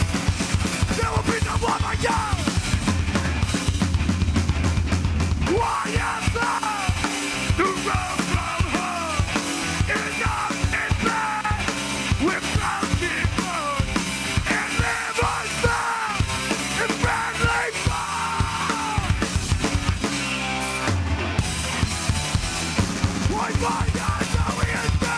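Live rock band playing heavy, distorted music: electric guitars and bass through amplifiers over a drum kit. About five seconds in, the drums pick up into a fast, dense beat.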